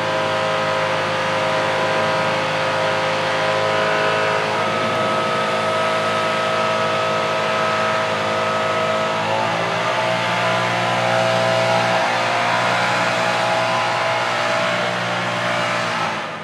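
Leaf blower running loudly and steadily; its pitch shifts a little about nine seconds in, and the sound drops away right at the end.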